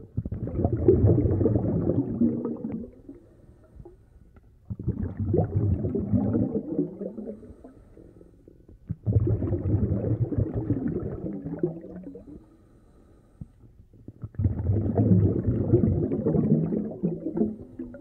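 Scuba diver breathing underwater through a regulator: four bubbling exhalations, each lasting about three seconds, with quieter gaps between them.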